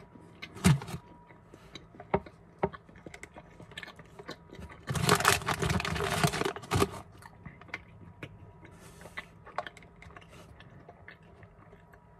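A mouthful of candy corn being chewed: scattered small clicks and mouth noises, with a louder, noisier stretch about five seconds in that lasts about two seconds.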